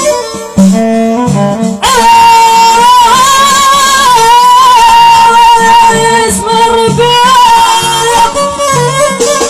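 Live Amazigh folk music: a high, wavering melody line held for several seconds from about two seconds in, over a low repeating beat.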